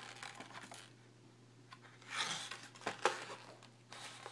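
Cardboard packaging insert being handled and pulled at: short, irregular rustling and scraping, with one sharp click about three seconds in.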